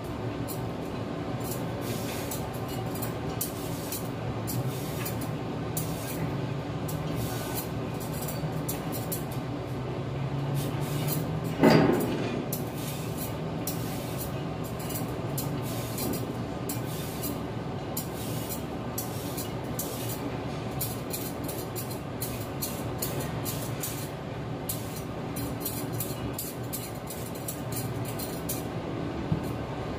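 Vegetable peeler scraping along the skin of a green radish in many short strokes over a steady background hum, with one louder knock about twelve seconds in.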